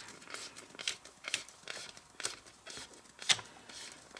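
Wide clear PET washi tape being peeled off its roll by hand: scattered crinkles and short ripping sounds of plastic film coming unstuck, the sharpest about three seconds in.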